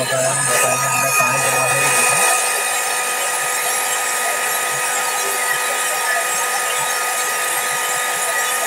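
Hand-held hair dryer running continuously, a steady rush of air with a constant whine, blowing hot air onto iced-up refrigerator evaporator coils to melt the ice.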